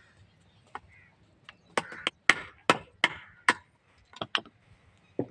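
Hammer blows on a rickshaw wheel hub while its broken wheel bearing is knocked out and replaced: a series of about ten sharp strikes, most of them close together through the middle.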